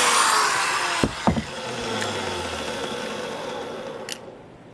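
Corded electric drill running, spinning the speedometer's drive, then cut off about a second in. A few sharp knocks follow as the drill is handled and set down, with a single click near the end.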